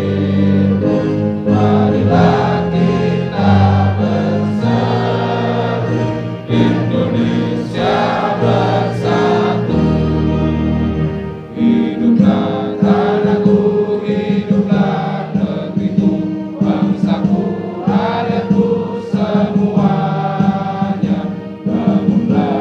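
A choir singing in slow, held notes over a steady, sustained musical accompaniment, loud throughout.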